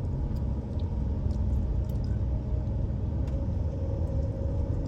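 Steady low rumble of the RV's engine and road noise heard from inside the cab.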